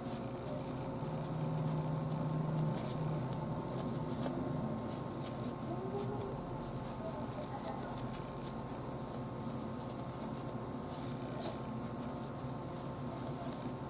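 Hands shaping soft bread dough into rolls, with scattered light taps and soft handling noises on a plastic cutting board, over a steady background hum.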